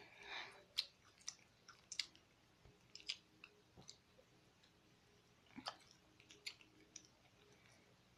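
Near silence with a few faint, scattered clicks and small mouth- or handling-like ticks.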